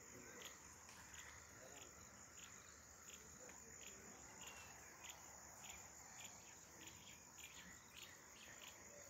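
Faint, steady high-pitched trilling of crickets, with scattered short ticks mixed in.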